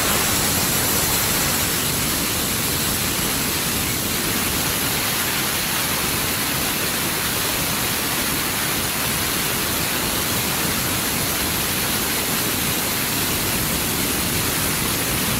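Compressed air hissing out of a Vespa 2 hp air compressor's tank through an opened valve, a loud steady rush that cuts off suddenly at the end. The tank is being bled down so the pressure switch will let the motor start.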